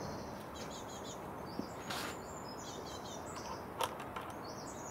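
Birds chirping and singing in the background, with two or three short sharp clicks from a plastic fuel bottle being handled.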